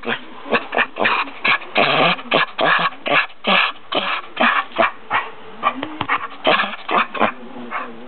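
Two dogs play-fighting, with a rapid run of short growls and barks, two or three a second, that die away near the end.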